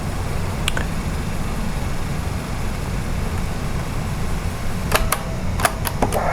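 Steady low electrical hum, with a click about a second in and a quick cluster of mechanical clicks near the end, as the keys of a CCR-82 cassette recorder are pressed to stop and rewind the tape.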